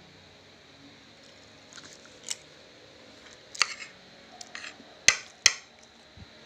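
Metal spoon clicking and scraping against a plate while scooping rice, a few sharp clicks with the loudest two close together near the end.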